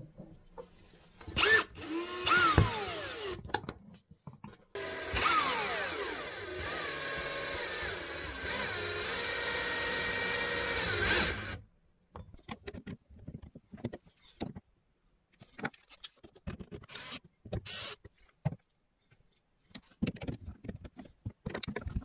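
Cordless drill-driver with a screwdriver bit driving the screws that fix a socket frame into a wall installation box: two short runs, then a longer run of about seven seconds whose pitch drops as the screw takes up, stopping suddenly. Scattered light clicks follow.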